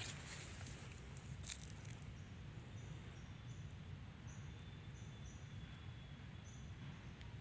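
Quiet outdoor ambience: a steady low rumble and faint hiss, with a string of short, high-pitched chirps between about two and seven seconds in.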